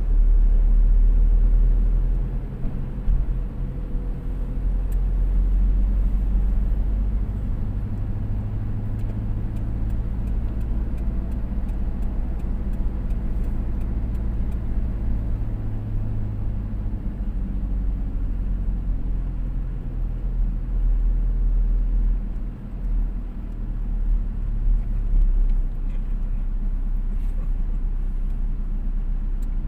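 Steady low rumble of a car being driven slowly, heard from inside the cabin: engine hum and tyre noise, with a faint engine drone that swells for a while in the middle.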